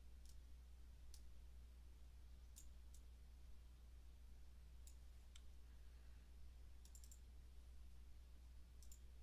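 Faint computer mouse clicks, scattered singly and in quick pairs, over a low steady hum in near silence.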